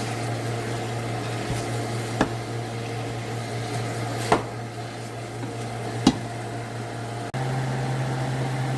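Steady low hum, with a spoon knocking sharply against the pan three times while ground beef is stirred in. About seven seconds in the hum cuts out for a moment and returns slightly higher.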